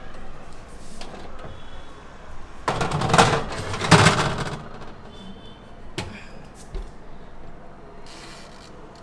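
A metal baking tray scraping as it is slid onto an oven's wire rack, loudest a few seconds in, then the oven door shutting with one sharp knock.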